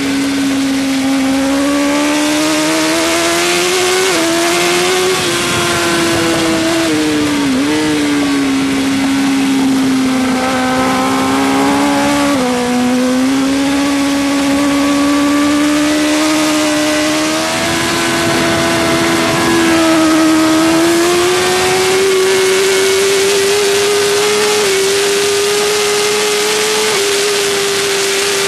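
Suzuki GSX-R1000 K5's inline-four engine running hard at high revs, heard on board the superbike at speed. The pitch holds high and climbs slowly, broken by a few short dips and jumps that fit gear changes and throttle lifts, with a steady rush of noise over it.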